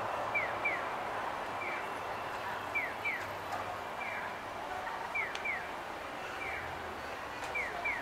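Pedestrian crossing audible signal chirping: short, falling, bird-like chirps, mostly in pairs, repeating about every second over steady street noise.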